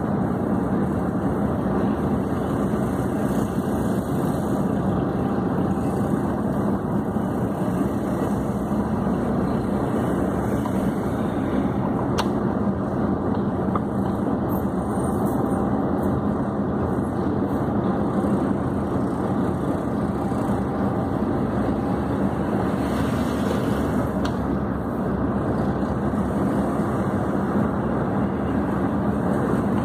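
Steady engine and road noise of a vehicle driving along a dirt track, heard from inside the cab.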